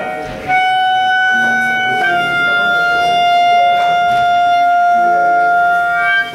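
Live instrumental music: a melody instrument holds long sustained notes over a lower accompaniment, closing on one long held note that stops about six seconds in.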